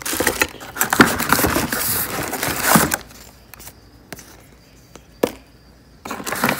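Plastic bags of mounting hardware and a cardboard box rustling and crinkling as parts are handled, with scattered clicks and knocks. It quiets about halfway through, and one sharp click comes late on.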